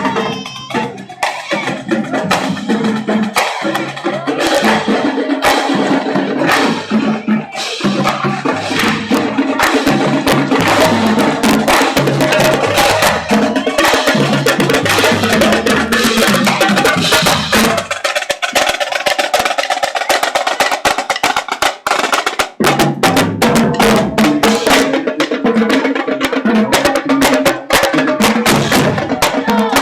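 Drum-heavy music: a fast run of drum hits, snare among them, over sustained pitched instruments, with the low end dropping out for a few seconds past the middle.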